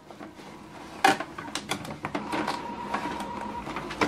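A stack of A4 paper being set into the plastic input tray of an HP OfficeJet Pro 8135e printer: a sharp knock about a second in, then lighter clicks and rustling of the paper against the tray.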